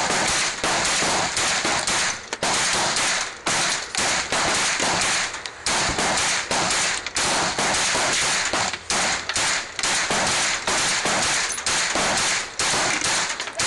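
Handgun fire from at least two shooters, shots following one another quickly and overlapping so that the cracks run almost continuously, loud enough to overload the recording.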